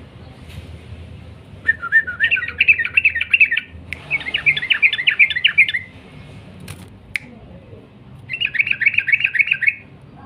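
Yellow-vented bulbul (trucukan) singing in the fast 'ropel' style: three bursts of rapid, chattering notes, each one to two seconds long, with short gaps between them. Two brief sharp clicks come between the second and third bursts.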